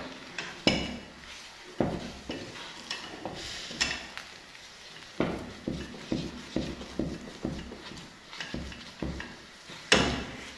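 Wooden cooking stick (mwiko) stirring and beating stiff ugali in a stainless steel saucepan: a run of irregular knocks and scrapes against the pot, the loudest near the end.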